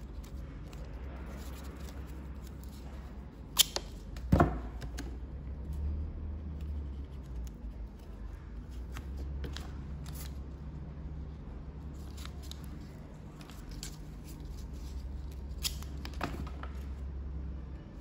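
Acetate cloth tape being pulled off the roll and worked into place by hand, a run of crackles and small clicks, with two sharp snaps around four seconds in. A steady low hum runs underneath.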